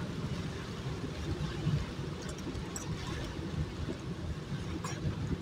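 Steady low rumble of a car driving on a wet road in rain, with the hiss of tyres and rain heard from inside the cabin.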